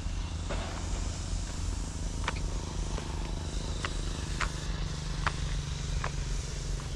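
Footsteps on the gravel ballast of a railway track, about one step a second, over a steady low rumble.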